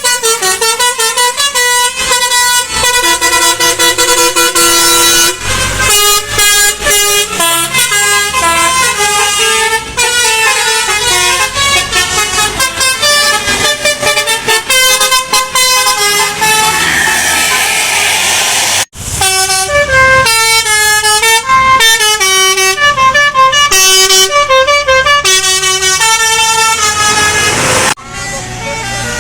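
Bus 'telolet' air horns (Basuri multi-tone horns) playing rapid stepped melodies, note after note, with two abrupt breaks, about two-thirds of the way through and near the end.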